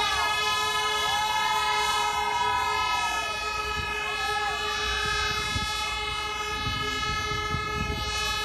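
Air horn sounding one long, unbroken blast at a steady pitch to signal the start of a running race.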